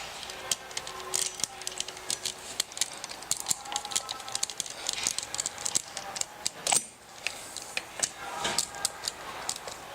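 Saw chain being handled and fitted onto a chainsaw's guide bar, its metal links rattling and clicking in many small, irregular clicks.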